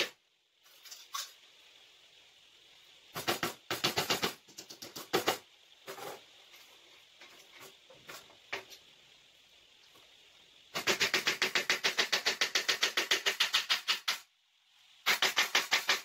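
Hammer driving nails into wood on a workbench in quick runs of light blows, about seven a second: one run of about three seconds two-thirds of the way in and a shorter one near the end. Earlier there are a few scattered knocks and clatters of wooden pieces being handled.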